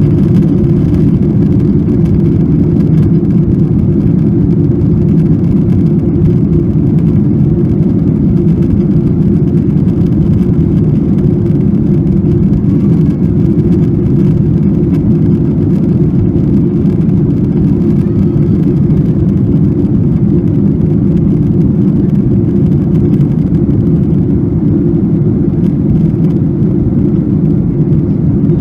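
Jet airliner cabin noise during the climb after takeoff: engines and rushing air make a loud, steady low rumble that holds even throughout.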